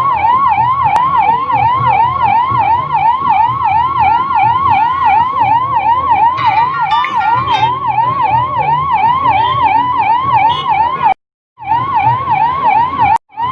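Ambulance siren in a fast yelp: a loud tone rising and falling in quick, even cycles over a low engine hum. It cuts out briefly about eleven seconds in and again near the end.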